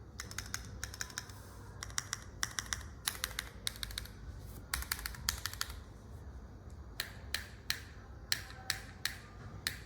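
Typing on a QK60 gasket-mount mechanical keyboard with a carbon-fibre plate, Gateron Pure Sky linear switches topped with vintage black housings, GMK Houhai keycaps and no foam. Quick runs of keystrokes for the first six seconds or so, then slower, separate presses about two a second.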